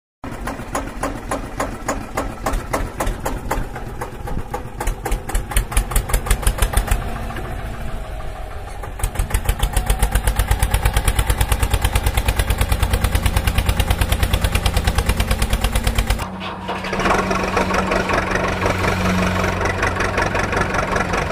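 Tractor engine starting and chugging in an even rhythm that quickens about nine seconds in. About sixteen seconds in it switches abruptly to a steadier engine running with more hiss.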